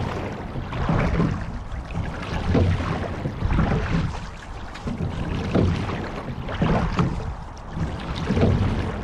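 Sculling shell being rowed: water rushing along the hull and the oars working in a steady stroke rhythm. Each stroke brings a pair of swells about a second apart, repeating roughly every three seconds.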